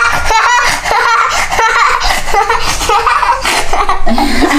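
Children laughing and giggling, with quick repeated bursts of laughter about half a second in.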